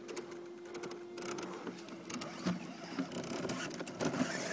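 Electric motor and gear drivetrain of a 1:10-scale Axial Hummer RC crawler whining as it crawls through mud, with scattered clicks and knocks from the tyres and chassis on the dirt. The whine holds a steady pitch for about the first second and a half, then wavers as the truck climbs.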